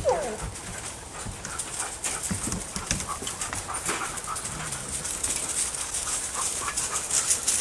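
A pack of sled dogs panting and moving about, with many scattered clicks and scuffs.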